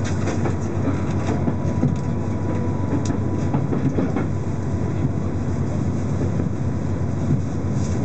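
Running noise of the Shiokaze limited express heard from inside the carriage as it pulls away from the station: a steady rumble of wheels on rails with scattered clicks over rail joints and points.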